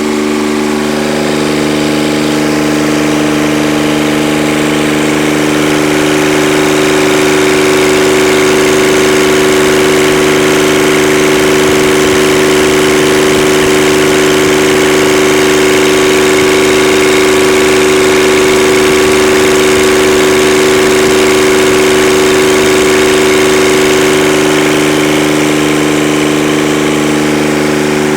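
Kubota D722 three-cylinder diesel engine running steadily at a constant speed, being run to check a resealed injector pump for fuel leaks.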